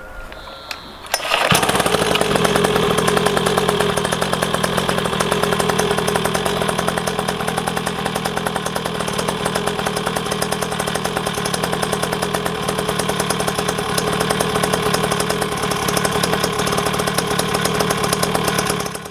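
A 49cc two-stroke mini dirt bike engine starts about a second in, then runs steadily at a fast, even firing rhythm at a constant pitch.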